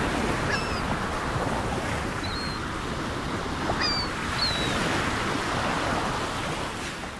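Ocean surf washing steadily, with a few short, high chirps scattered through it. The sound fades out at the very end.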